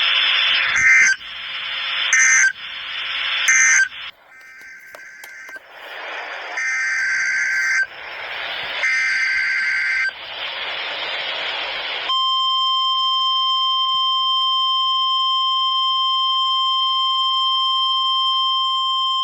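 NOAA Weather Radio Emergency Alert System signal: a string of short, warbling SAME digital header bursts with radio hiss between them. About twelve seconds in, the steady 1050 Hz Weather Radio alert tone comes on and holds, the signal that a watch or warning message follows.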